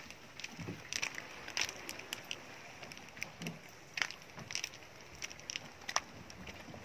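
Footsteps crunching over rough shoreline rocks: irregular sharp clicks and a few soft knocks.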